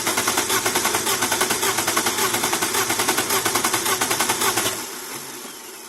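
BMW E36 320i's inline-six engine turning over on the starter in a fast, steady train of pulses, then stopping and dying away near the end. The cranking rhythm shows one cylinder with no compression, the fourth, which causes its misfire.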